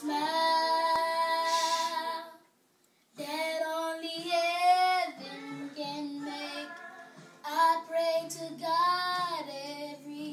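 A boy singing solo, drawing out long notes that waver and bend in pitch, with a brief break about two and a half seconds in.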